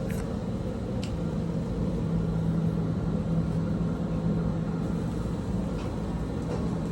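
Mammoth commercial HVAC unit running in heating mode: a steady hum with a low drone, and a faint tick about a second in.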